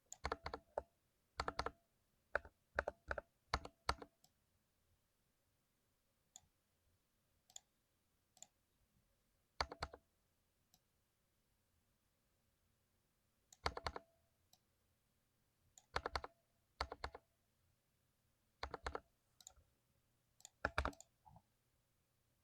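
Lubed 60% mechanical keyboard being typed on: short clusters of a few keystrokes, separated by pauses of one to several seconds, with a few faint single key presses in between.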